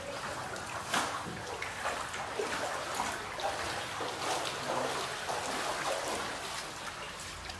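Footsteps wading through shallow floodwater on a tiled floor, the water sloshing and splashing at irregular steps, over a steady wash of moving water.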